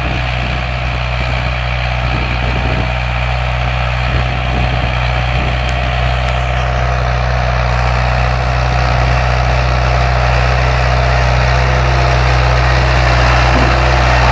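David Brown 1290 tractor's four-cylinder diesel engine running steadily, growing gradually louder.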